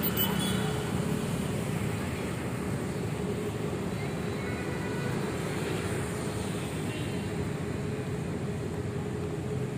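Steady road and engine noise of a car driving along a road, a continuous rumble with a faint steady hum.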